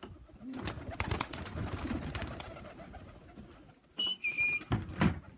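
Pigeons cooing in the loft, with light clicks and rustling. About four seconds in, a short whistle on two steady notes, the second lower, then a loud brief call.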